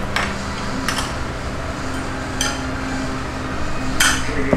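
Dishes and cutlery clinking: about four short sharp clinks, the loudest near the end, over a steady low hum.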